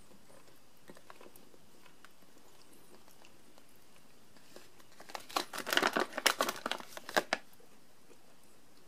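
Plastic candy bag crinkling as it is handled and turned over: a burst of crackles lasting about two seconds, starting about five seconds in, after quiet room tone.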